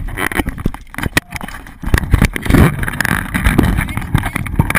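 Wind rushing hard over the microphone of a camera carried by a zip-line rider, with irregular knocks and rubbing from the camera being jostled.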